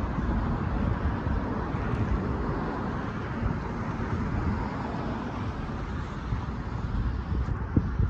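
Road traffic: cars driving past over the crossing, with wind rumbling on the microphone.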